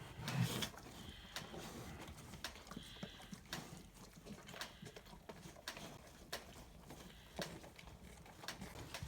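Two calves eating corn and pears from feed tubs: irregular crunching and chewing clicks.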